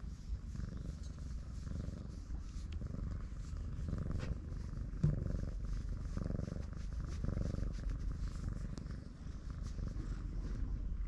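Brown tabby-and-white cat purring loudly while its throat is scratched, the purr swelling and easing about once a second with its breathing.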